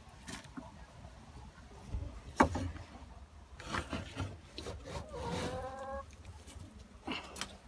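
A small shovel scraping and knocking on the wooden floor of a chicken coop as droppings and straw are scooped out, with a sharp knock about two and a half seconds in. A chicken gives one drawn-out call around five seconds in.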